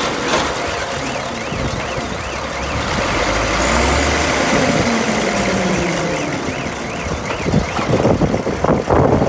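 A machine's engine running under a loud rushing noise, with a repeated high chirp that rises and falls about twice a second for stretches. Clattering knocks come near the end.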